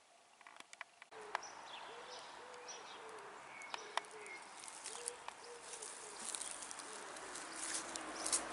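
Outdoor birdsong that starts about a second in: a pigeon cooing in a run of low, repeated arching coos, with smaller birds chirping higher above it.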